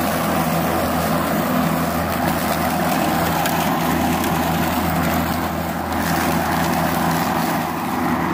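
Makita 18V X2 (36V) cordless lawn mower running steadily as it cuts tall, wet grass: an even motor hum with a blade whirr, which shuts off abruptly at the very end.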